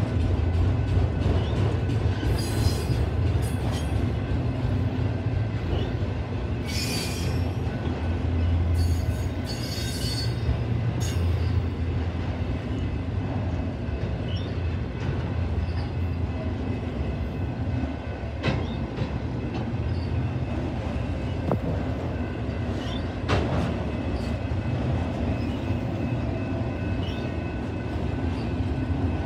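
Freight train of multi-level autorack cars rolling past with a steady low rumble. Brief high-pitched wheel squeals come several times in the first dozen seconds, and a few sharp clacks come later.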